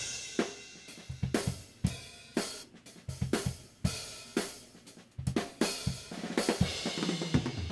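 Playback of the soloed hi-hat track from an acoustic drum kit recording: hi-hat strokes, with kick and snare hits heard through it, at an uneven pace. The track opens with a short cymbal wash.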